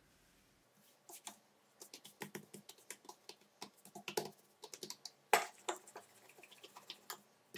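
Hands pressing and stretching a thin sheet of dough on a countertop: irregular soft taps and clicks, with a louder knock about five seconds in as a wooden rolling pin is set onto the dough.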